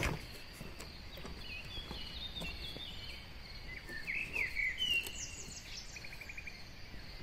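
Faint birds chirping in the background over a steady high tone, with a single knock at the very start as the cardboard box is handled.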